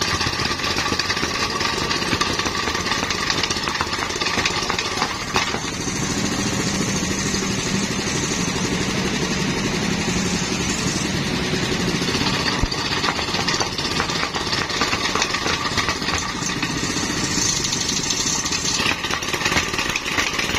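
Small petrol engine of a tamping rammer (jumping-jack soil compactor) running steadily on a test run after repair.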